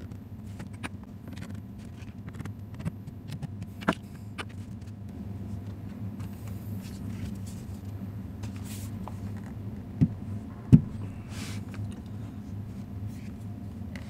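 Small clicks and taps of an HP ProBook 430 G7 laptop's bottom cover and screws being handled and refitted, over a steady low background hum. A sharp tick comes about four seconds in, and two louder knocks come a little after ten seconds.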